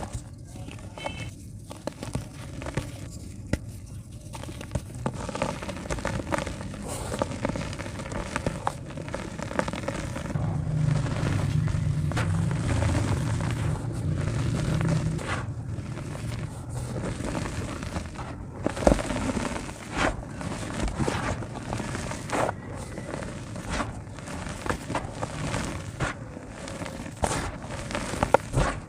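Dry clumps of yellow dirt crumbling and breaking apart, a dense irregular crackle of small snaps and grainy rustling. There is a heavier, lower crunching stretch near the middle and sharper individual snaps later.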